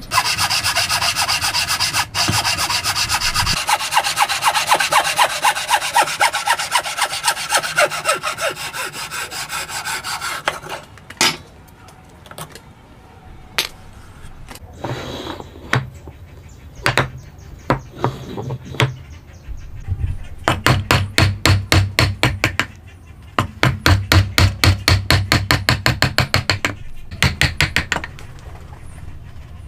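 Hand tools cutting wood: a long run of rapid back-and-forth sawing strokes, then a few separate knocks, then bursts of quick regular strokes on wood in the second half.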